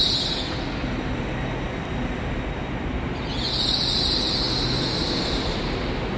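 TransPennine Express Class 802 train moving slowly past along the platform, with a steady low running hum. A high hiss swells briefly at the start and again from about the middle to near the end.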